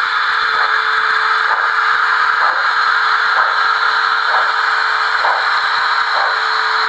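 Märklin T 18 gauge 1 model steam locomotive running slowly with its ESU sound decoder and fan-driven smoke generators working: a steady hiss and whir over a steady hum, with faint soft beats about once a second.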